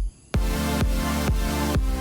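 Electronic dance background music with a steady beat of about two strokes a second and a heavy bass, briefly dropping out right at the start.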